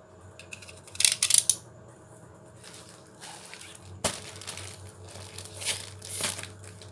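Plastic delivery packaging being handled: crinkling rustles about a second in and again near the end, with a sharp knock about four seconds in.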